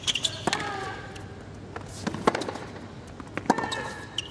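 Tennis rally on a hard court: sharp racket strikes on the ball every second or two, with a player's short grunt on two of the shots.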